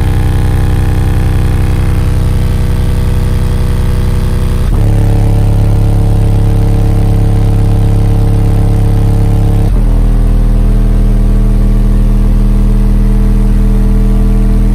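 Four Power Acoustik Gothic 12-inch subwoofers playing bass-heavy music at full volume inside the car, with deep sustained bass notes that change twice, about every five seconds.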